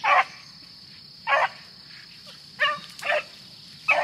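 Beagles barking as they run a rabbit's trail: about five short, separate barks at uneven gaps.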